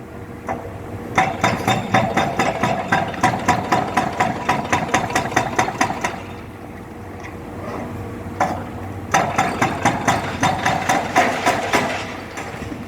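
Powered demolition hammer pounding concrete in two runs of rapid, even blows, about four a second, with a machine engine running steadily underneath.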